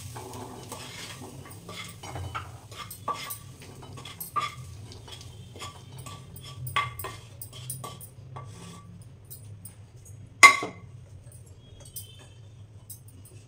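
A wooden spatula scrapes and taps spiced chickpeas out of a nonstick frying pan into a steel bowl, giving a run of light clicks and scrapes with the bowl ringing faintly. About ten seconds in comes one loud metallic clank.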